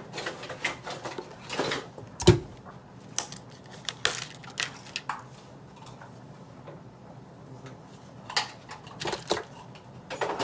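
Kitchen handling sounds: scattered clicks and knocks of containers and utensils being moved about, with one loud thump about two seconds in and a quieter spell in the middle.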